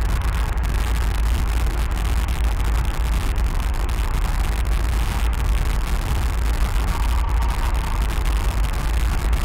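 Steady low rumble with an even hiss over it, holding the same level throughout; a faint higher tone rises out of the hiss briefly about seven seconds in.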